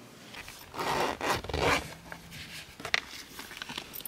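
Zipper on fabric pulled in two quick rasping strokes about a second in, then a sharp click near three seconds and lighter rustling of fabric.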